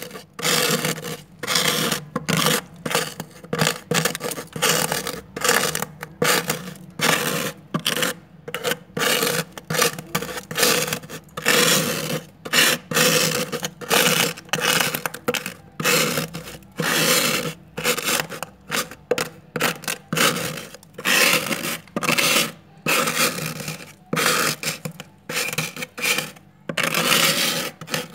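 Plastic card scraping thick, snowy frost off a freezer's inner wall: a long run of irregular scraping strokes, each a fraction of a second to about a second long, with short pauses between.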